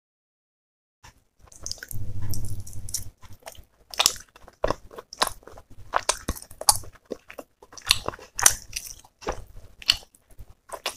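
Close-miked eating sounds of a person chewing roti and chicken curry: wet smacks, crunches and mouth clicks in quick succession, starting about a second in, with a brief low hum about two seconds in.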